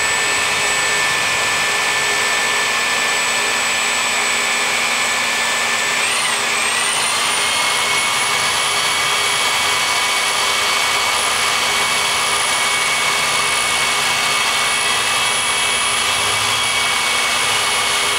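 Corded electric drill running steadily, spinning a balsa stick as it is fed through a handmade dowel cutter. About six seconds in, the motor's whine wavers and settles at a slightly higher speed.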